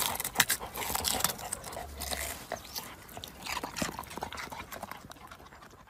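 A Labrador rooting and digging in loose garden soil: scraping dirt, crumbling clods and rustling leaves in quick irregular clicks, dying down near the end.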